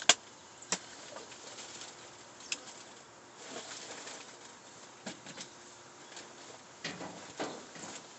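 Scattered sharp knocks and clicks with short bursts of rustling, from someone rummaging through trash in a dumpster; the sharpest knock comes just after the start.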